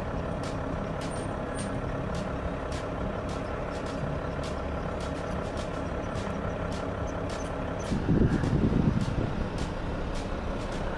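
Stopped vehicles idling steadily, with faint regular ticks about twice a second. About eight seconds in, a louder rumble lasts about a second.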